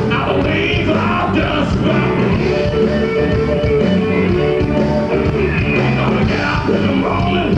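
Live rock band playing on stage: guitars and a singing voice through the PA.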